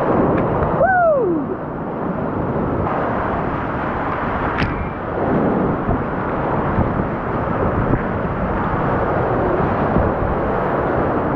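Loud, steady rush of Class 3-4 whitewater rapids heard from inside a kayak as it runs the drop. A short falling tone about a second in.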